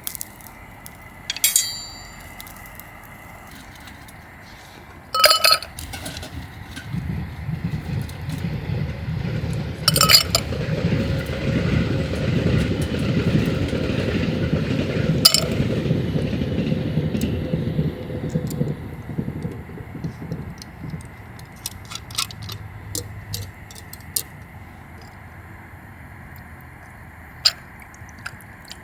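A train passing, its low rumble building for a few seconds, holding, then fading away over about fifteen seconds. Several sharp clinks are heard over it and after it, the loudest about five and ten seconds in.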